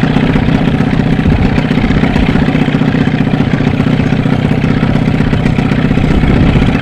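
Small boat's outboard motor running steadily in gear at trolling speed, a rapid even putter.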